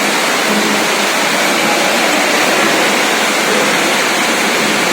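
Steady, loud, even workshop machine noise, a continuous hiss-like din with no distinct knocks or changes.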